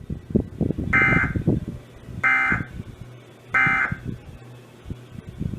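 Emergency Alert System end-of-message signal: three short, identical buzzy bursts of digital SAME data, each under half a second and about a second apart, marking the end of the alert message.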